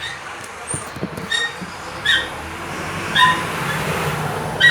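Small dog yipping and whining in about five short, high yelps, over a steady rushing noise.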